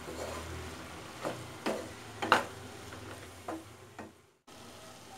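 Wooden spatula stirring sliced onions and tomatoes frying in oil in a nonstick kadai: a soft sizzle with several scrapes and knocks of the spatula against the pan. The sound drops out briefly about four seconds in.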